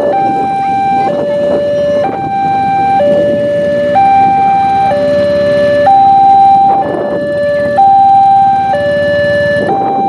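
Railway level-crossing electronic warning alarm alternating between a higher and a lower note, each held about a second, signalling that a train is approaching. Road traffic noise runs underneath.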